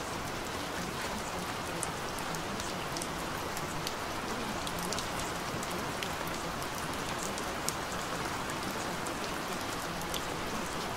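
Steady rain falling, an even hiss with scattered drop ticks throughout.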